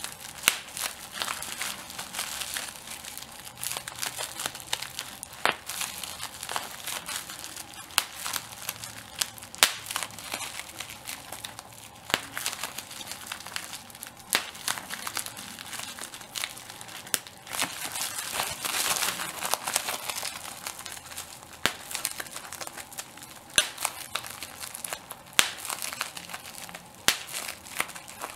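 Bubble wrap being handled and popped: a steady plastic crinkling broken by many sharp, irregular snaps as individual bubbles burst, several a second.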